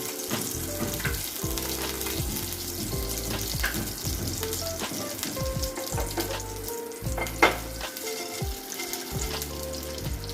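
Watermelon and pumpkin seeds sizzling as they fry in ghee in a pan, stirred with a spoon that clicks and scrapes against the pan, with one sharper knock about seven seconds in.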